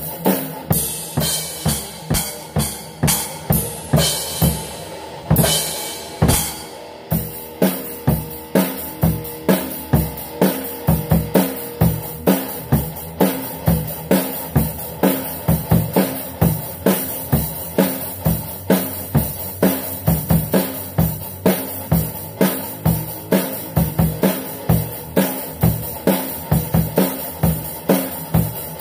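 Live drum kit and electric guitar jamming: the drummer keeps a steady beat on kick and snare, about two to three strokes a second. Crashing cymbals wash over the beat for several seconds early in the stretch, then the groove carries on with the guitar underneath.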